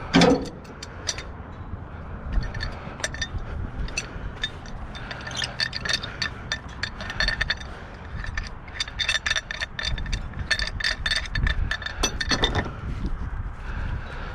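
Pieces of scrap metal clinking, knocking and scraping against each other as they are handled, with many short ringing clinks. A heavier thump opens the sound.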